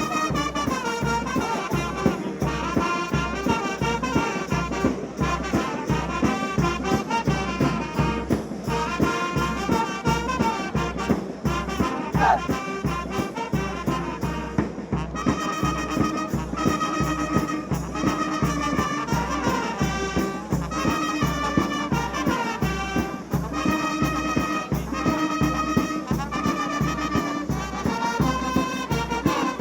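Brass band music with trumpets and trombones over a steady drum beat.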